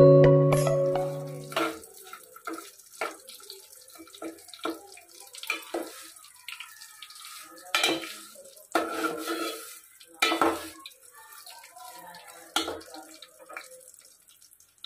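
A short chime-like intro tune ends in the first couple of seconds. After that, a steel ladle scrapes and clinks irregularly against an aluminium pot while stirring dry vermicelli being roasted in ghee.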